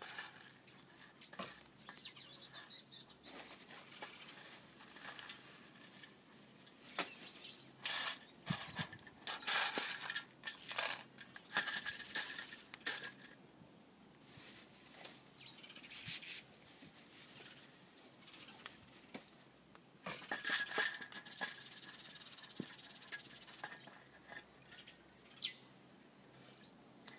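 Small pan being stirred and scraped over a wood fire while coffee beans and pepper grains roast in it for Café Touba: irregular clicks, scrapes and rattles, busiest in the middle of the stretch and again a little later.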